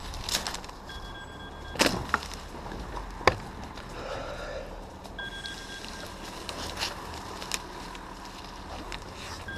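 Mobile phone ringing with a steady high ring tone, heard about a second in and again about five seconds in, with a few sharp knocks and clicks over it.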